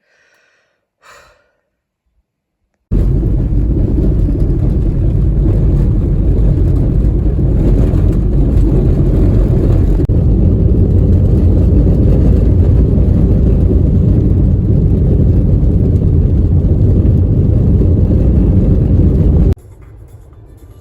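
Loud, steady low rumble of a car on the move, road and wind noise. It starts suddenly about three seconds in and cuts off just before the end.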